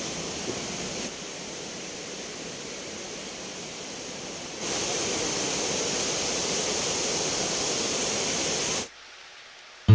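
Spring water running, a steady rushing hiss. It grows louder a little before halfway, then drops away to a faint hiss near the end.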